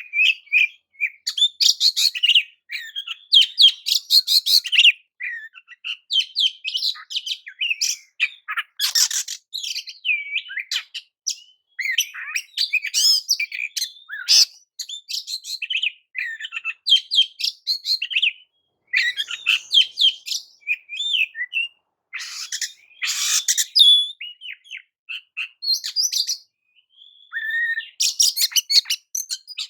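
Oriental magpie-robin (kacer) singing: quick runs of varied whistles and harsh chattering notes, broken by short pauses.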